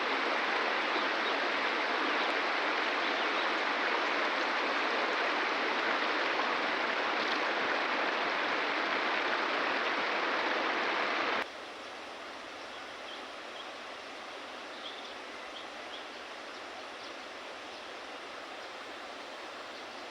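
Steady rushing of flowing river water. About halfway through it drops suddenly to a quieter flow, with a few faint high chirps over it.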